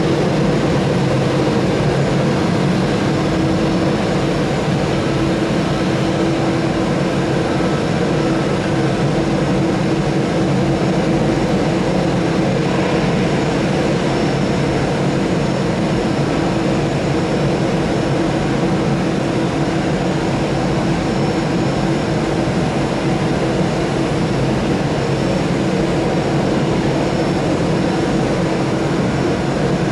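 Airbus A320-214's CFM56 jet engines running at idle: a steady loud hiss with a constant low hum.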